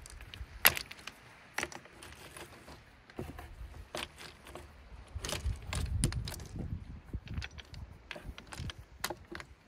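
Small wooden boards knocking and clacking as they are laid and shifted on a driftwood log: several sharp knocks spread out, the loudest about a second in, with a low rumble midway.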